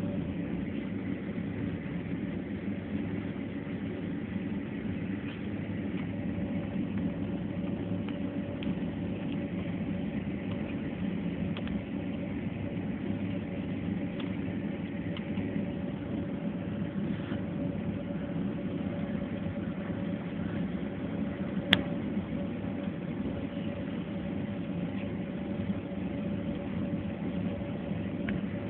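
Steady drone of an airliner's jet engines at idle, heard inside the passenger cabin before take-off, with a faint steady hum over it. A single sharp click comes late on.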